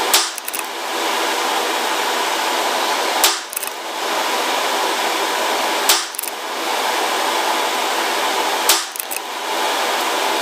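A CZ 457 Pro Varmint bolt-action .22 LR rifle firing Remington subsonic ammunition: four sharp shots about three seconds apart, each followed by a few small clicks, over a steady hiss.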